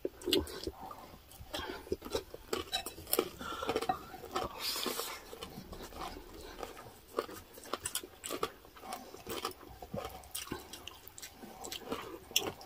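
Close-miked eating sounds: chewing with irregular small clicks and wet mouth noises, and a wooden spoon scooping thick pork blood stew from a ceramic bowl.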